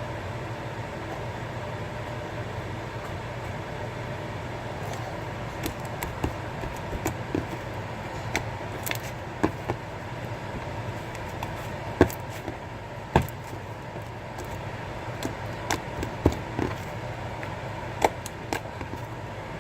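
A steady background hum, with scattered sharp clicks and pops starting about five seconds in and coming roughly once a second, two of them clearly louder than the rest.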